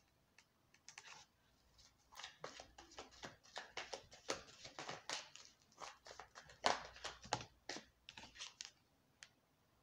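Tarot cards being shuffled and handled by hand: a string of irregular soft, papery flicks and slaps, the loudest about two-thirds of the way in.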